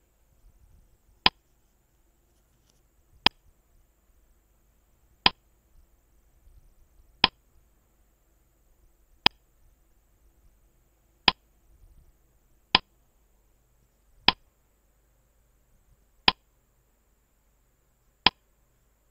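Countdown-timer sound effect: a sharp clock-like tick about every two seconds, ten in all, marking the time allowed to answer a quiz question.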